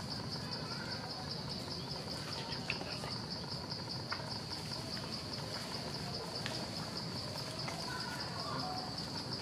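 High, steady insect trill pulsing evenly and without a break, with a few faint clicks over it.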